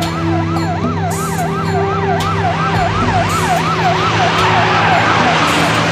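Police car siren wailing fast, its pitch rising and falling about three times a second. Near the end it fades under a building rush of noise as the car pulls up.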